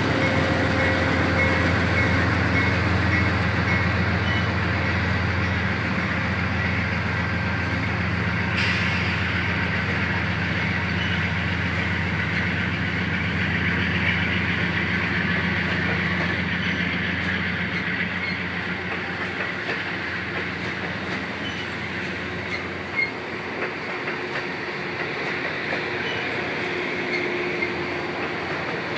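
Amtrak Superliner double-deck passenger cars of the Coast Starlight rolling slowly past close by, a steady low rumble of wheels on rail with faint clicking over rail joints. A thin squeal sounds near the start, and the rumble eases off over the second half.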